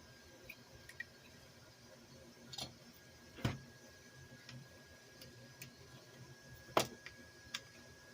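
Small RC car parts being handled and fitted by hand: scattered light plastic and metal clicks and ticks, with two louder knocks about three and a half and seven seconds in. A faint steady high whine comes in with the first knock.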